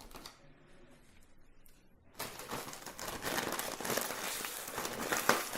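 Food packaging being handled and crinkled: quiet at first, then about two seconds in a loud, dense run of crackling and rustling starts and keeps on, with a sharper crackle near the end.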